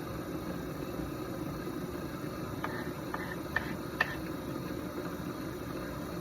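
Electric potter's wheel running at slow speed, a steady motor hum, with four light clicks a little past the middle.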